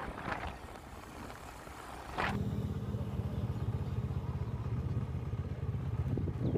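Motorcycle engine running, a steady low hum that comes in louder about two seconds in, after a brief sharp sound; before that, fainter wind and road noise.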